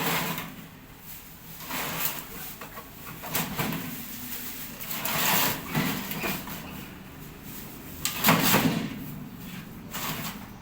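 Irregular scraping and clattering handling noises, about half a dozen separate bursts, as the casing of a window-type air conditioner is worked open.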